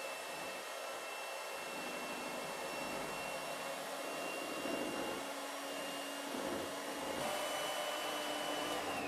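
Handheld electric mixer beating meringue in a bowl. Its motor runs steadily with a high whine, which steps slightly higher about seven seconds in. The meringue is being whipped until soft peaks begin to form.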